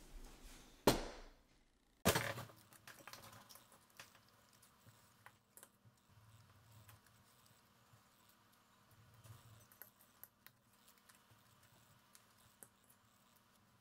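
A fork clicking and scraping on a ceramic plate during a meal: quiet, scattered small ticks. Two louder knocks come about one and two seconds in.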